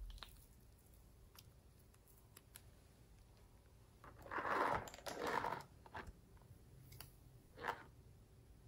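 Faint handling noises: a few small clicks, then two louder rustling scrapes about four to six seconds in and a shorter one near the end.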